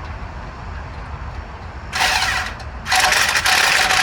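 Cordless power wrench running bolts down in two bursts, a short one about two seconds in and a longer, loud one from about three seconds in, tightening the bolts in a star pattern.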